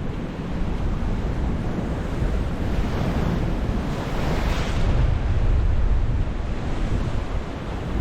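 Sea surf washing, with wind rumbling on the microphone; a wave surges up and breaks about halfway through.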